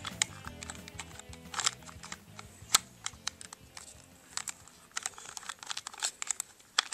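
Irregular hard-plastic clicks and taps from a small plastic action figure being pushed and fitted into the seat of its plastic toy plane.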